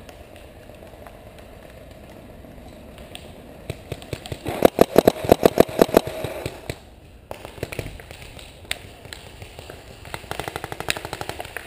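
Paintball marker firing a rapid string of shots, about eight a second for roughly two seconds, starting about four and a half seconds in. Fainter rapid shots follow near the end.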